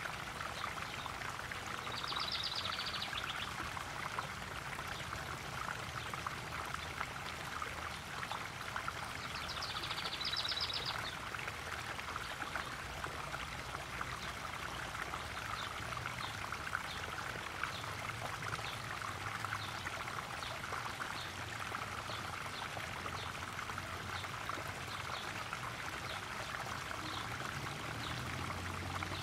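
Small garden waterfall splashing and pouring steadily into a koi pond.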